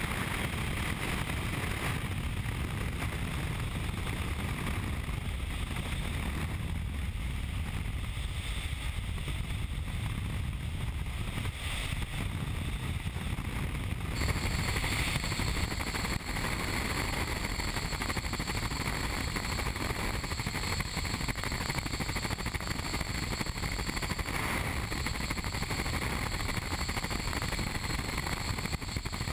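Steady rush of high-speed air through an indoor vertical wind tunnel's flight chamber. The tone shifts abruptly about halfway through.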